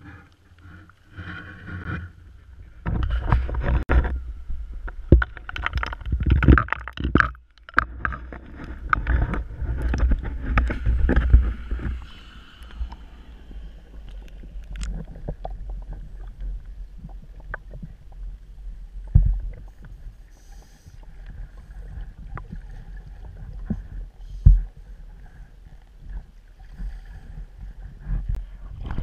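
Water sloshing and bubbling, muffled as heard through a waterproof camera housing at and below the surface, loud and irregular for the first dozen seconds, then quieter. Scuba divers' exhaled bubbles rise past, with a couple of dull knocks later on.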